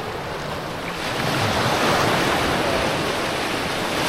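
Lake Michigan waves washing onto the beach, a steady surf noise that swells about a second in, with some wind on the microphone.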